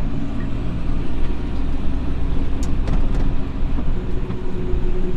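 Tractor engine running steadily, heard from inside the cab, with a few faint clicks.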